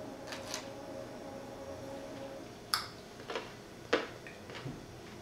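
Eating and food-handling sounds: a few short, sharp clicks and taps over a quiet room background, the two strongest about two and three quarter seconds and four seconds in, as a carrot stick is handled over small plastic cups of dressing.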